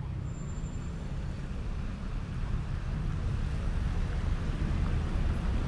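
City street ambience dominated by a steady low rumble of road traffic, slowly growing louder.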